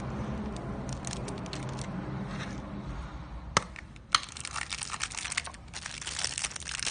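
Handling noise: crinkling and rustling with two sharp clicks a little over half a second apart about halfway through, followed by a dense run of small crackles and ticks.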